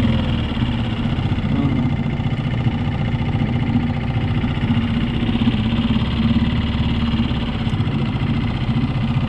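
Mercury 3.5 hp outboard motor running steadily at low speed while it is being run in.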